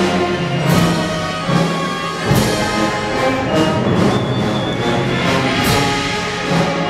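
Procession band playing a slow march: brass holding long notes over drums, with cymbal crashes recurring every second and a half to two seconds.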